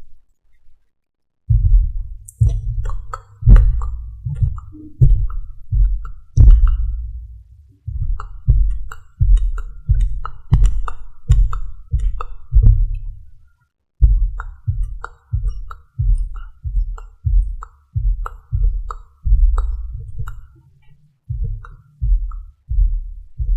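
Soft, muffled pats against the microphone, about two a second with light clicks, in an ASMR makeup roleplay, as if powder or foundation is being patted on. The patting pauses briefly twice.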